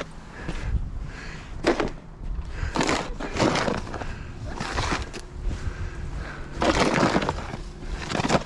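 Snow shovel scraping and crunching through snow on pavement in several irregular strokes, the longest near the end.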